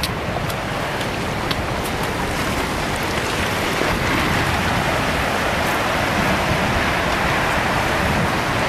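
Tsunami floodwater rushing and churning through town streets and around buildings: a steady rush of water that grows louder about four seconds in, with a couple of sharp clicks in the first two seconds.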